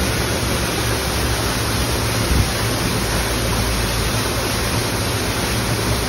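Water rushing steadily, a constant full hiss with no let-up.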